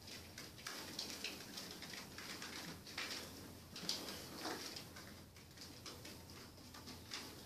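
Akita puppies' paws pattering and claws ticking on the hard floor of a wooden whelping box as the litter moves about: a steady run of light, irregular clicks.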